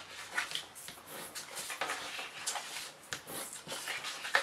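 Orange cardstock being folded along its score lines and burnished flat by hand: irregular papery rustles and scrapes against the work surface, with a few light taps, the sharpest near the end.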